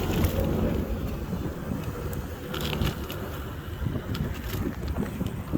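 Electric scooter riding along a dirt trail: a steady low rumble of wind on the microphone and tyres rolling over the ground, with a few sharp knocks and rattles partway through.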